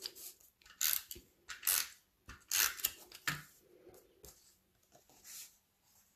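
Paper being handled: sheets of patterned paper and card sliding and rustling, in about five short scrapes and crinkles spread over a few seconds.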